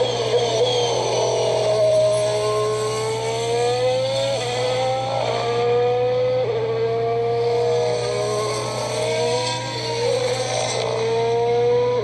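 2019 Formula 1 car's 1.6-litre turbocharged V6 hybrid engine: pitch falling as the car slows into a corner, then climbing in steps through several quick upshifts as it accelerates away.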